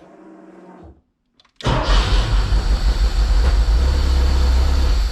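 A faint steady hum for about a second, then after a short pause a Porsche 914's air-cooled engine is cranked on the starter and fires, running loud until it stops abruptly near the end. This is the start attempt after a no-start fault traced to a failed fuel pump and a loose pressure-sensor wire.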